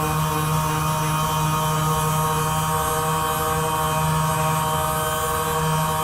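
Handheld percussion massage gun running steadily against the back: a constant motor buzz and hum that holds one speed throughout.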